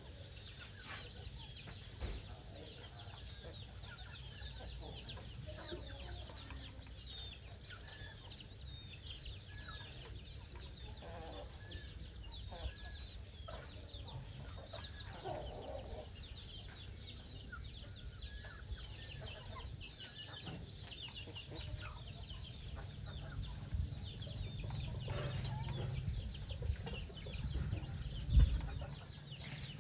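Chickens clucking with a dense run of high, quick peeping from chicks throughout. A low rumble builds toward the end, with one sharp thump near the end.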